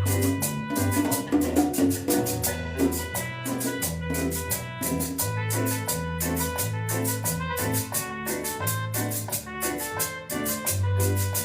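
Latin dance music with a steady percussion beat, bass line and keyboard melody.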